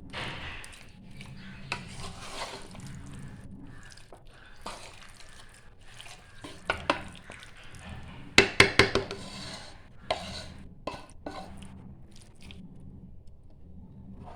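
A spoon stirring and scraping marinated chicken through tomato masala in a cooking pot, with a quick run of sharp knocks of the spoon against the pot about eight and a half seconds in.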